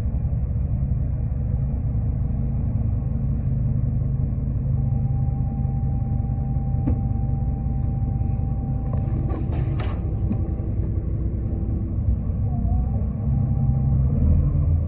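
Onboard a 2005 New Flyer D40LF diesel transit bus in motion: steady engine and road rumble. A sharp click comes about seven seconds in and a brief rattle around ten seconds, and the rumble gets a little louder near the end.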